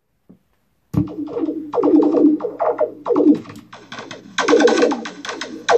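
Amplified electric guitar played as experimental noise music with a bamboo skewer and a bottle slide, run through loops and electronics. About a second in, a quick string of struck notes begins, each swooping down in pitch, over a steady low hum.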